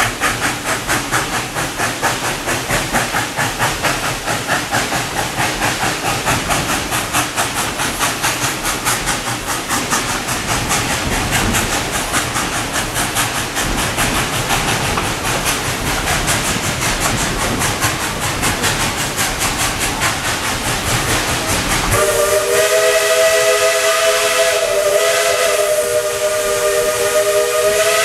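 Narrow-gauge steam locomotive working along the line, its exhaust chuffing about four times a second over a steady hiss. About 22 seconds in, a long blast of its chime steam whistle begins, several notes sounding together.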